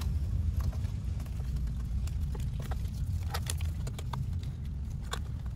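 Faint, scattered plastic clicks and rubbing from a gloved hand pushing an electrical connector back onto the intake manifold runner control, with a few clicks between about two and five seconds in. A steady low rumble runs underneath.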